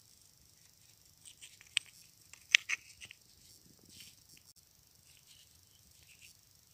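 A handful of light, sharp clicks of small soft sandy-shale grinding stones knocking together and being set down as they are handled, bunched between about one and a half and three seconds in.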